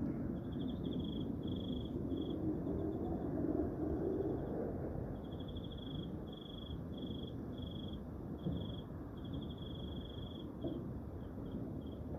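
A low steady rumble from the sky, which the listener describes as the heavens roaring and finds freaky, with insects chirping over it in short, repeated trills that stop and start.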